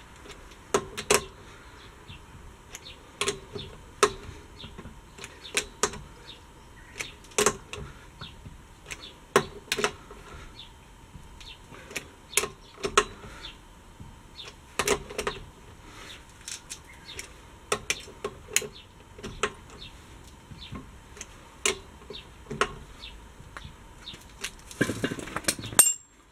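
Irregular sharp clicks and clinks, one to three a second, over a faint steady tone, with a short rustling burst near the end.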